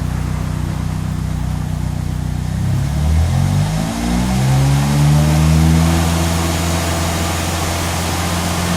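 VW Gol 1.0 16v turbo four-cylinder engine running in gear with a drive wheel lifted, being run up toward about 100 km/h to bring out a wheel-bearing noise. About three seconds in, the engine pitch dips and then rises as it is accelerated, and it settles into a steady, higher drone.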